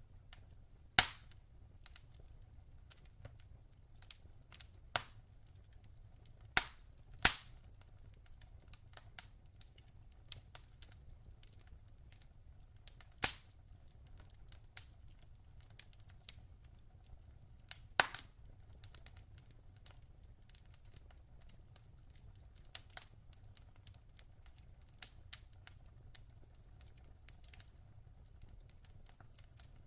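Log fire crackling: irregular sharp pops and snaps, a few much louder than the rest, over a faint steady low rumble.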